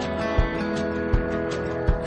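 Music between sung lines: a slow song with guitar and a steady beat, a low drum thump about every three-quarters of a second.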